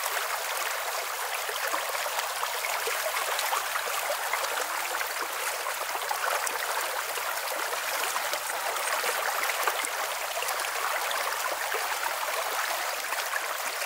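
Shallow stream running over pebbles: a steady rush of water.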